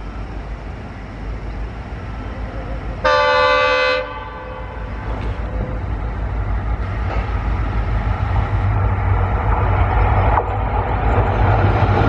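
Indian Railways WDP4D diesel-electric locomotive, with its EMD two-stroke diesel, approaching at speed. It sounds one horn blast about three seconds in, lasting about a second. Then the engine's low running and the rush of the train grow steadily louder as it closes in.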